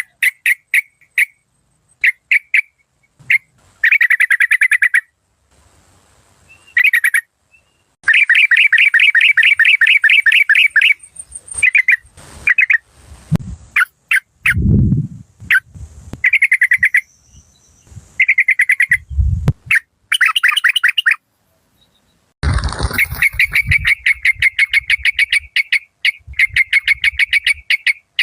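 Yellow-vented bulbul calling in fast, harsh chattering trills, repeated phrases of a second or two with short gaps. A few low thumps come in the middle.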